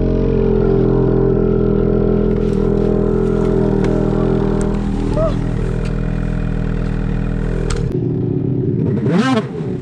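Ski-Doo Summit Turbo R snowmobile's turbocharged two-stroke engine running at a steady pitch. About eight seconds in there is a knock, and the steady engine note drops away.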